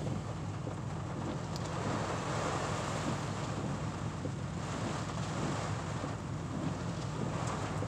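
Heavy thunderstorm rain pelting the truck's roof and windshield, heard from inside the cab, with wind gusting against the truck, as a steady rushing noise.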